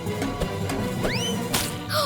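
Cartoon background music with a rising whistle-like sound effect about a second in, followed by a short noisy burst near the end.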